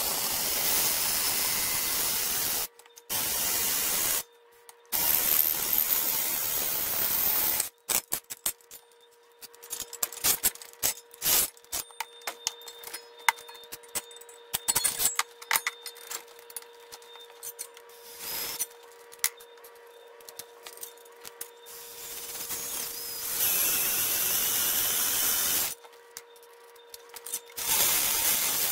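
Cordless drill boring into a steel bracket held in a bench vise. It runs in long steady stretches, three in the first eight seconds and two more near the end, with scattered clicks and taps between them.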